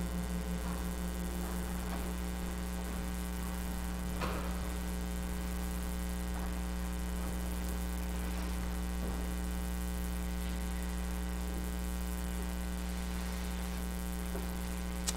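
Steady electrical mains hum with its overtones, as the last note of the hymn accompaniment dies away at the very start. Faint scattered knocks and a sharp click near the end.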